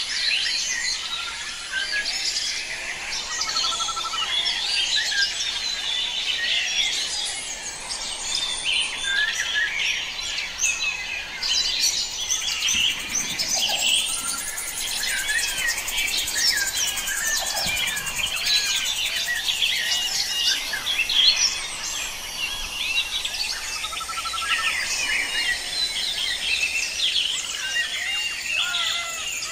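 Forest bird chorus: many birds chirping and calling at once, short quick notes overlapping continuously.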